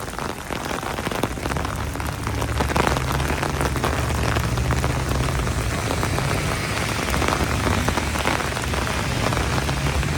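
Heavy rain falling steadily, with a dense spray of individual drop hits. A low rumble joins in about a second and a half in and carries on underneath.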